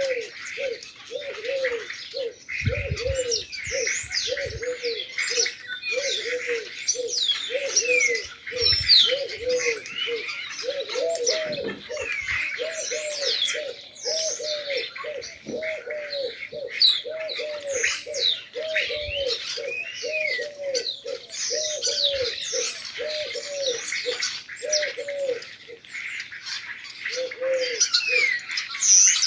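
Pigeons cooing in a long, regular series of low notes, about one a second, over a dense chorus of sparrows chirping. A few low thumps come in between.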